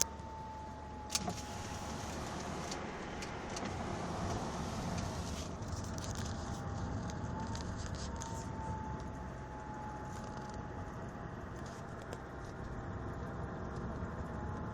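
Failing turbocharger on a Mercedes 320 CDI whistling: a thin whistle that slowly rises and falls in pitch, fading and coming back, over steady engine and road noise, with a few sharp rattles and clicks. It is the sign of a dying turbo; on inspection both impeller wheels, the shaft and the bearings needed replacing.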